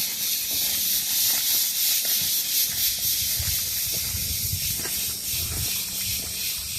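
Cicadas singing in chorus: a loud, steady, high-pitched buzz with a slight pulsing, and a few soft low thumps in the middle.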